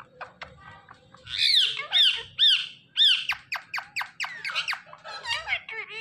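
Parrot squawking: four loud, shrill calls about half a second apart, each rising then falling in pitch. They are followed by a quick run of short falling chirps and some rougher chatter near the end.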